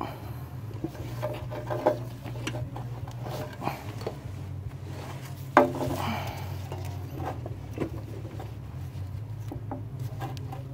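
Scattered light knocks, taps and rubbing from hands and tools working on the underside of a truck, with one sharper knock about halfway through, over a steady low hum.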